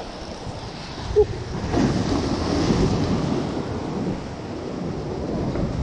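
Sea surf washing against a rocky shore, with wind buffeting the microphone; the wash swells for a second or so near the middle. A brief sharp sound stands out about a second in.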